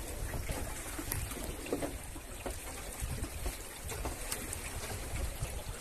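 Water lapping and slapping against the hull of a small fishing boat, with short irregular splashes over a low wind rumble on the microphone.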